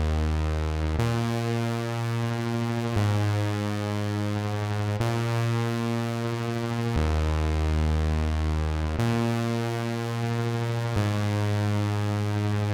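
Electronic music: sustained synthesizer chords, changing about every two seconds, with no beat.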